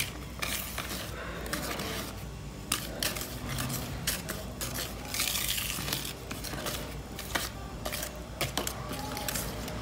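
Wire whisk stirring thick cake batter by hand in a bowl: irregular wet squelching strokes with light clicks of the wires against the bowl.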